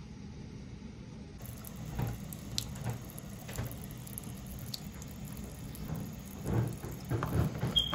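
Close-up chewing of a mouthful of dry starch chunks: irregular crunches and wet mouth sounds. They are sparse at first and come thicker and louder about three-quarters of the way through.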